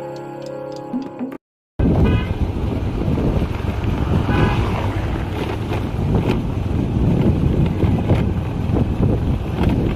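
Instrumental music cuts off about a second and a half in. After a brief gap comes a steady low rumble of wind on the microphone mixed with road traffic, with a short car-horn toot a few seconds in.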